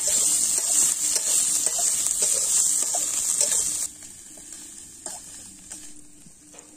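Sliced onions and ground spices sizzling in hot oil in a metal kadai, stirred with a metal spatula that scrapes and taps the pan. About four seconds in the sizzle cuts off suddenly, leaving a much quieter stretch with a few faint taps.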